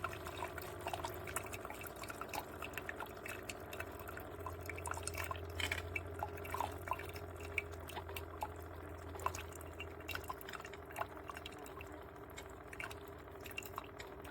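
Cuisinart SS-16 coffee maker brewing: irregular small drips and trickles of coffee falling, over a faint steady hum.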